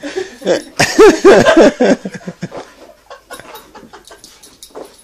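A person laughing in a quick run of ha-ha bursts about a second in. Then faint scuffing and rustling as a dog rubs and rolls itself on towels on the carpet.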